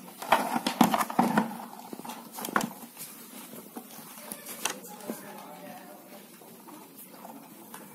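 Handling noise from wiring work: hands working wires into a small plastic terminal connector block, with a cluster of sharp clicks and knocks in the first couple of seconds, then only a few scattered light clicks.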